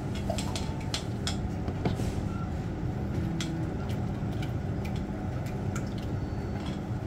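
Eggs being beaten with a utensil in a stainless steel bowl for scrambled eggs: wet stirring with scattered light clicks, over a steady low hum.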